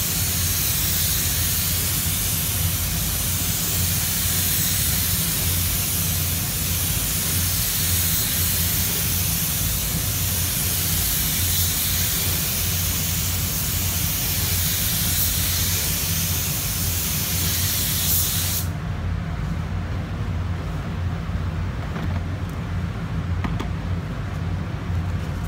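Compressed-air paint spray gun hissing steadily as it lays down a base coat of automotive paint, then cutting off abruptly about three quarters of the way through, leaving a steady low hum.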